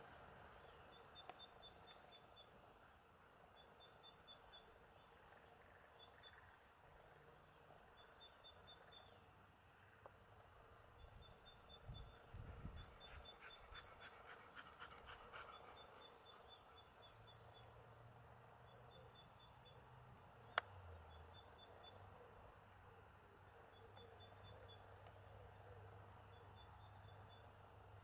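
Faint birdsong: a small songbird repeats a short phrase of quick high notes, alternating between two pitches, every couple of seconds. A brief run of rapid ticks comes in the middle, and a single sharp click about twenty seconds in.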